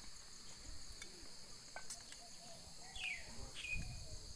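Steady high drone of insects, crickets or cicadas, under faint distant voices; about three seconds in a bird gives two short high calls, the first sliding down in pitch.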